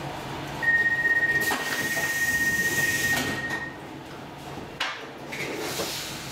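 Stockholm Metro C14 train's door-closing warning: one steady high-pitched tone held for about three seconds, followed a second later by a sharp knock as the sliding doors shut.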